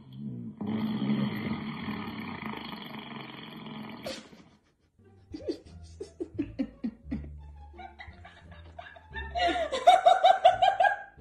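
Fart sound effects played from an Amazon Echo Dot smart speaker: a long drawn-out one, then after a short pause a sputtering run of short ones. A burst of laughter comes near the end.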